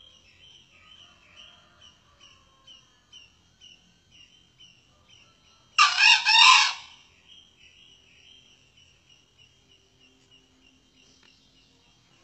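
A male junglefowl crows once, a short harsh call of about a second with three quick pulses, about halfway through. A steady, rhythmic high chirping goes on in the background.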